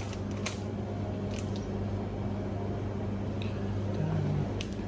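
Steady low electrical hum of a shop interior, with a few faint clicks and a brief extra tone about four seconds in.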